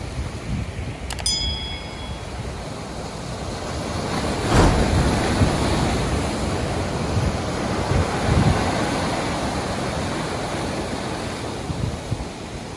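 Ocean surf washing in, swelling to a breaking wave about four and a half seconds in and slowly easing off, with wind buffeting the microphone. A brief click with a short ring sounds about a second in.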